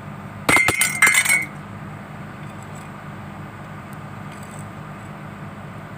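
A quick cluster of sharp metallic clinks and taps with a brief ringing tone, steel parts or tools striking one another, lasting under a second. A steady low hum from the excavator's idling engine runs underneath.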